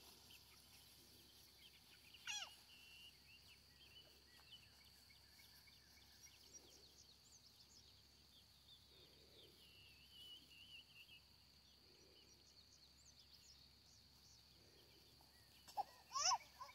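Faint calls of young chickens foraging in grass: scattered soft peeps, one louder falling call about two seconds in and another near the end. A steady high-pitched tone runs underneath.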